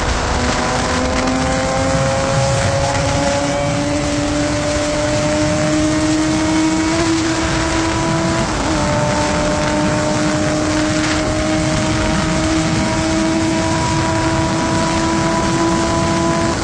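Carbureted Honda Hornet 600 inline-four engine running at high revs. Its note climbs slowly, dips briefly about eight seconds in, then climbs again and holds.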